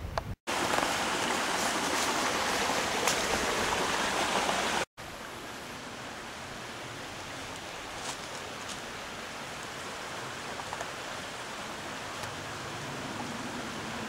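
Rushing water of a small woodland creek, a loud steady rush that cuts off abruptly about five seconds in. A softer steady rush follows, with a few faint clicks.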